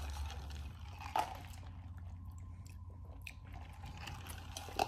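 Soft mouth sounds of eating and drinking, with a few small clicks, over a steady low room hum.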